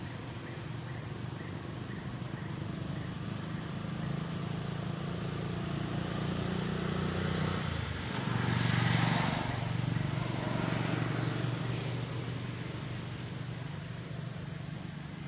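A motor vehicle's engine running steadily, growing louder, changing note about eight seconds in and loudest just after, as it passes, then easing off.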